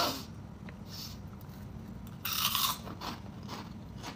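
A snack packet being handled and opened: one short, sharp crackle of its wrapper a little over two seconds in, over faint room noise.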